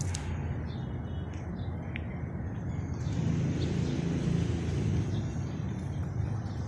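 Outdoor ambience: a steady low rumble, likely distant traffic, with a few short bird chirps above it; the rumble grows a little louder about halfway through.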